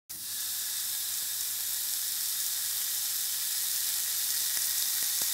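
Barbecue-glazed beef short rib sizzling steadily on a hot grill grate, with a few faint pops near the end.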